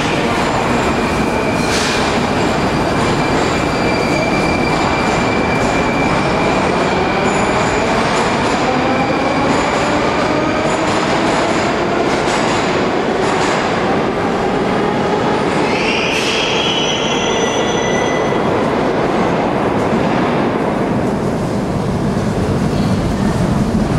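Moscow metro train running through the station, its heavy rumble steady throughout. The traction motors' whine slides in pitch as the train gets under way, and there is a brief high wheel squeal about sixteen seconds in.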